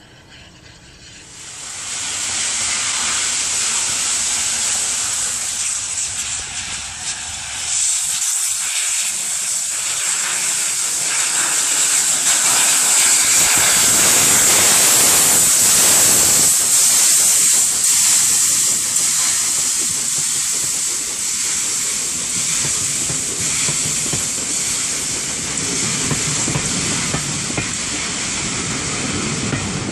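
Steam locomotive passing close by, blowing out a loud, steady hiss of escaping steam that starts about a second in and swells to its loudest around the middle. Near the end the low rumble of the passing coaches comes up under the hiss.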